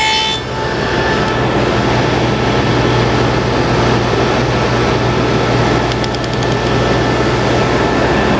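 Table saw running steadily with a constant motor hum, its blade cutting finger-joint notches in a hardwood hinge blank carried past it on a box-joint jig.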